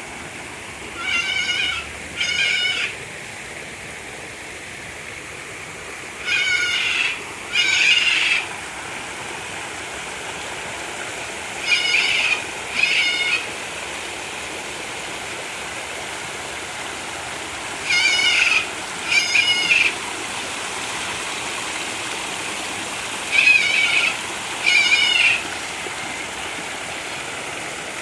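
Water running steadily over an artificial rock waterfall. An animal's call, in pairs of two short wavering notes, repeats five times, a pair every five to six seconds.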